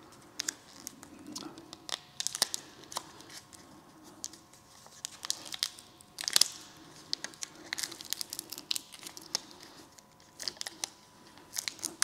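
Clear plastic film crinkling and tearing as sticky rubber tire-repair plug strips are pried and peeled apart with pliers: scattered, irregular crackles, loudest about six seconds in.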